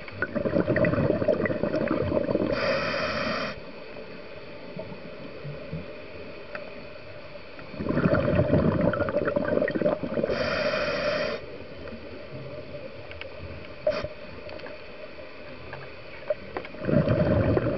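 Scuba diver's breathing heard underwater: three long bursts of exhaled bubbles, roughly every eight or nine seconds, the first two each ending with a brief hiss of the regulator on the inhale, over a steady underwater background.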